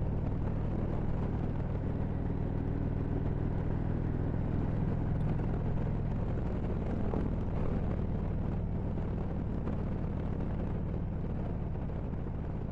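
A 2013 Harley-Davidson Road Glide Ultra's V-twin engine runs steadily at cruising speed, mixed with wind and road noise. The engine note eases off about halfway through.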